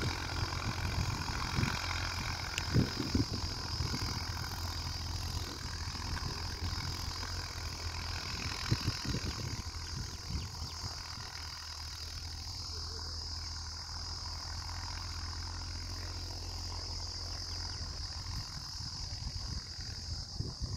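Distant farm tractor's diesel engine running steadily while ploughing, growing a little fainter after the middle. A constant high-pitched insect drone sounds throughout, with a few low thumps in the first half.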